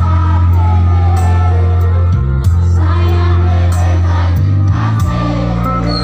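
Live pop concert music played loud over a PA system, with a heavy bass line and singing, and shouts from the crowd around the phone.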